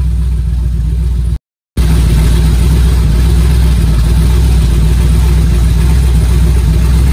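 Mazda RX-7 engine idling steadily at about 880 rpm, warm, with its electric water pump just switched on. The sound cuts out completely for a split second about a second and a half in.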